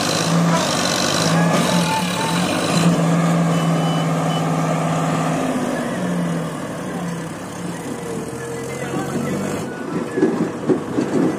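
Diesel engines of a Sonalika DI 745 III tractor and a JCB 3DX backhoe loader running under heavy load as the backhoe pushes the tractor's bogged-down, soil-laden trolley. The drone is steady at first and eases a little after about six seconds.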